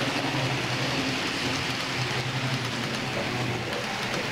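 H0-scale model train running along the layout's track: a steady low motor hum under an even wash of rolling noise, the hum fading out near the end.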